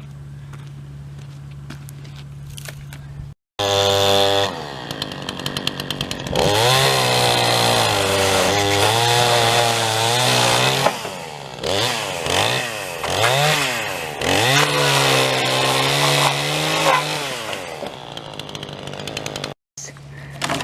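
A chainsaw running and cutting wood, its engine revving up and down again and again. It is loud, and it is preceded and followed by a steady low hum.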